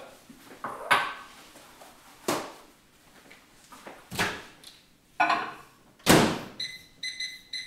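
Microwave oven being loaded: a few knocks and clunks as its door is opened and shut, then several short high beeps near the end as the keypad is pressed to set two minutes at 50% power.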